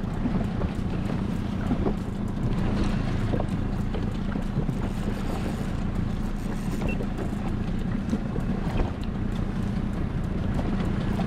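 Small boat's motor running with a steady low hum, mixed with wind noise buffeting the microphone.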